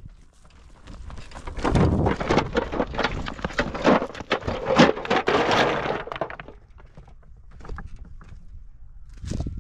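A dense clatter of many sharp knocks and cracks for a few seconds, thinning out to scattered light clicks.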